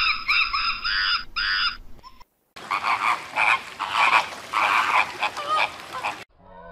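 Animal calls from two different clips. First comes a run of short, high calls, each rising then falling, about three a second. After a brief break comes a run of harsh, rasping, pulsing calls that cut off suddenly near the end.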